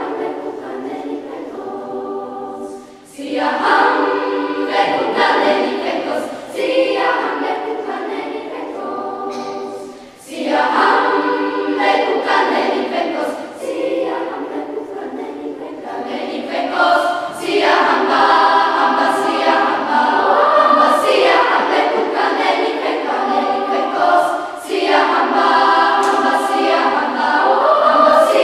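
Children's choir singing a cappella, phrase after phrase, with short breaks about 3 and 10 seconds in.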